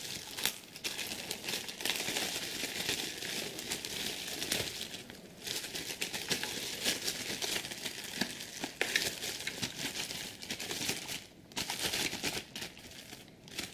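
Thin plastic bag crinkling and rustling as hands pull a lock handle assembly out of it, with short lulls about five seconds in and near the end.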